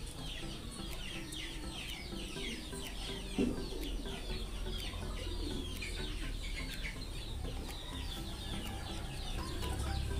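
Chickens clucking and small birds chirping continuously in the background, with a steady low hum underneath.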